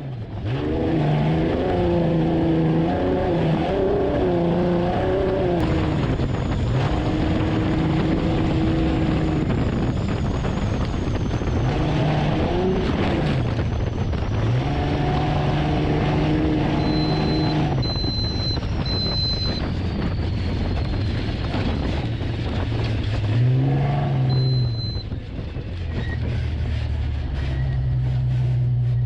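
Class 7 off-road race truck's engine revving up and down repeatedly as it is driven hard, its pitch climbing and dropping with throttle and gear changes. A few short high beeps sound about two-thirds of the way through.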